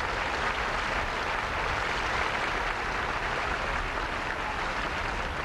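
Outdoor crowd applauding steadily.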